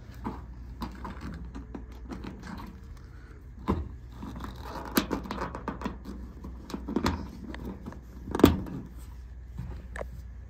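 Metal hood-pin clip and its steel tether cable clicking and rattling as the clip is worked into a hood pin on a car's hood. There is a handful of sharp clicks, the loudest about eight and a half seconds in, over a steady low hum.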